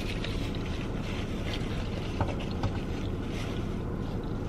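Steady low rumble inside a car cabin, the sound of a running vehicle, with two faint clicks a little after two seconds in.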